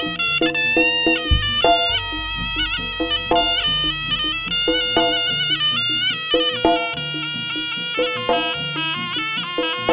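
Live Javanese jaranan gamelan music. A slompret (Javanese shawm) plays a wavering, nasal melody over regularly repeated gong-chime strokes, with one deep gong stroke about a second in.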